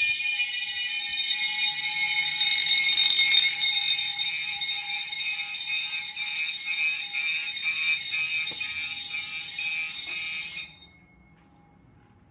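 A fire alarm system's sounders going off together: continuous ringing mixed with an evenly repeating pulsed tone. They cut off suddenly about eleven seconds in.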